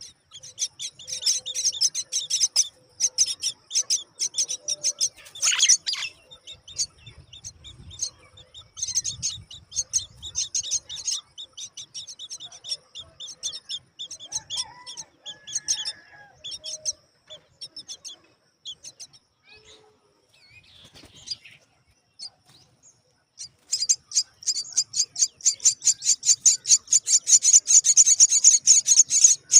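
Common myna nestlings begging in the nest with rapid, high chirping. The chirping comes in a busy run at first, thins out to scattered calls, then starts up again louder and faster near the end.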